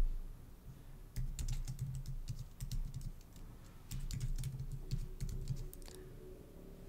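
Computer keyboard typing: quick keystrokes in two bursts, starting about a second in and stopping near the six-second mark, as short terminal commands are entered.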